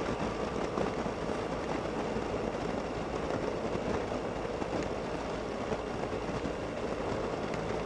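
Suzuki Burgman 650 scooter's parallel-twin engine running at a steady cruise, mixed with a steady rush of wind and road noise.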